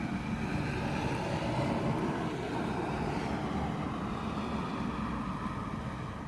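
A motor vehicle going by, its engine and road noise loudest about two seconds in and then fading away.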